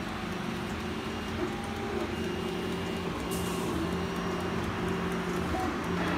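Steady machine hum with several low tones that shift in pitch now and then.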